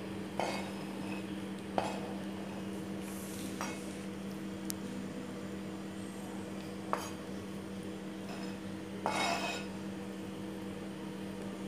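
A metal spoon tapping and scraping against a cutting board and bowl as shredded omelette strips are pushed off the board: several separate clinks and two longer scrapes, about three seconds and nine seconds in, over a steady low hum.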